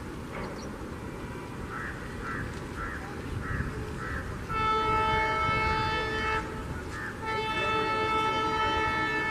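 WDP4D diesel locomotive's air horn sounding two long blasts, the second still going at the end, as a warning to people walking on the track. Under it is the steady rumble of the approaching train.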